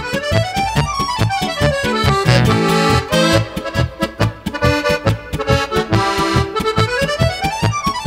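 Zupan button accordion playing solo: quick runs of notes climbing and then falling in the treble, twice, over a steady pulsing bass beat.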